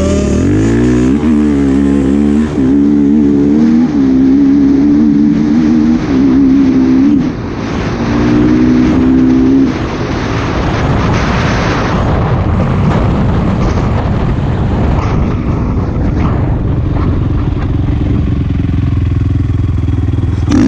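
Honda TRX 450R quad's single-cylinder four-stroke engine accelerating hard. Its pitch climbs and drops back several times as it shifts up through the gears, then it settles into a steadier, noisier run at speed.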